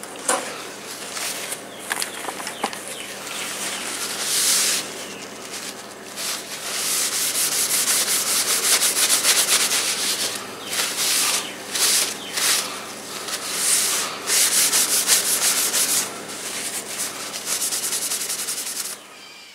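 Paper towel rubbed briskly over a metal chainsaw guide bar, wiping it clean in runs of quick back-and-forth strokes. A few sharp knocks come in the first seconds.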